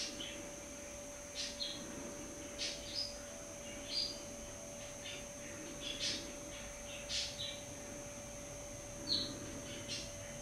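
Small garden songbirds chirping: a dozen or so short, high chirps, often in quick pairs, roughly one a second, over a faint steady hum.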